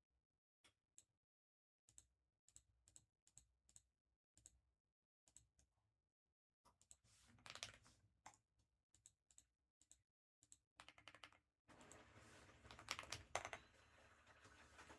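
Faint typing on a computer keyboard: scattered keystrokes at first, becoming quicker and busier from about seven seconds in.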